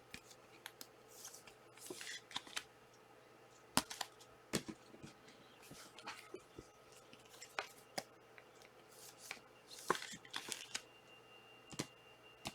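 Faint rustling and scattered soft clicks of Panini Prizm trading cards being handled and slid past one another during a pack break, with brief swishes about two, six and ten seconds in.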